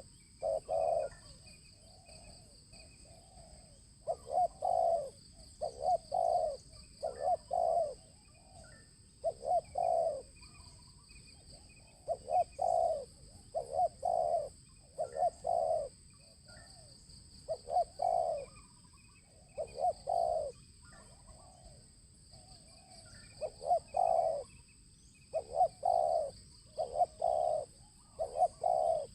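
Spotted dove cooing: groups of two to four low, hollow coos with short pauses between the phrases. A steady high-pitched whine runs behind it, with faint chirps.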